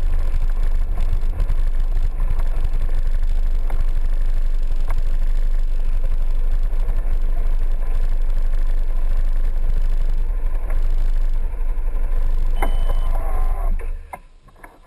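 Piaggio MP3 scooter engine running at low speed and then idling, heard as a steady low rumble with a few sharp ticks. Near the end the sound drops away abruptly.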